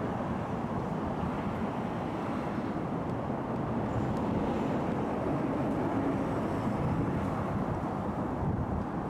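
Steady outdoor rumble of vehicle and street noise, swelling slightly in the middle.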